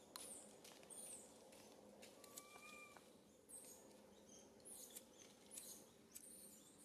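Faint outdoor background with scattered sharp, high chirps and ticks. About two and a half seconds in, a baby long-tailed macaque gives one short, even-pitched squeak.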